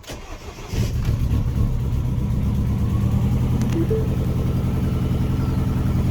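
Mini Cooper petrol engine cranking briefly and catching under a second in, then running steadily on its first start after the cylinder head was refitted. The exhaust is leaking (blown), which adds to the note.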